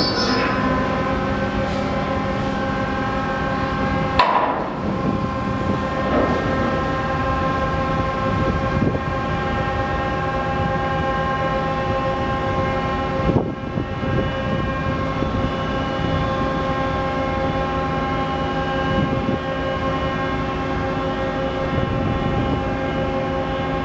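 Steady machinery hum with several fixed pitches from a ferry and its loading ramp as the ramp is lowered onto the ship. Sharp knocks come near the start, about four seconds in and about thirteen seconds in.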